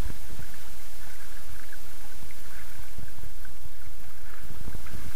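Steady rushing hiss of wind and water on a small sailboat under way, with low gusty thumps of wind buffeting the microphone about a second in and again near the end.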